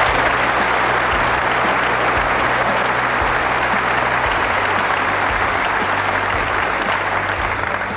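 Arena audience applauding steadily, dying away at the end.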